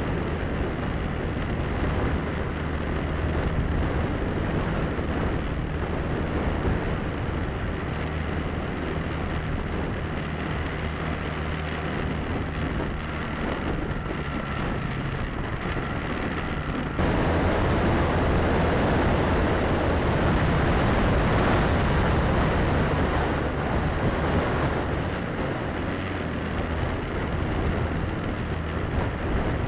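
Honda Rebel motorcycle engine running steadily at cruising speed, with wind rushing over the camera microphone. About halfway through, the wind rush suddenly gets louder for several seconds, then eases.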